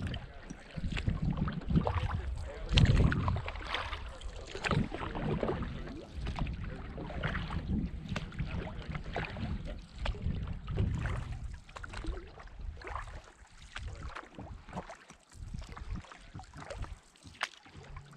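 Canoe paddle strokes: the blade splashing and dripping in lake water, with uneven small splashes and knocks. Wind gusts on the microphone in the first few seconds.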